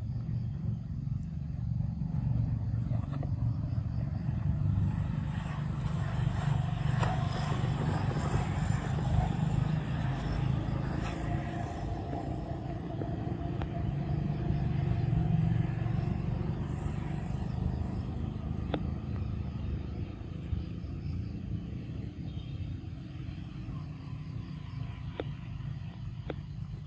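Low, steady rumble of motor vehicles, swelling twice, with a few faint clicks near the end.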